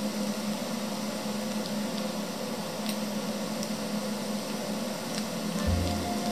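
Diced potatoes frying in oil in a pan over very low heat: a gentle, even sizzle with a few tiny pops. A low tone comes in near the end.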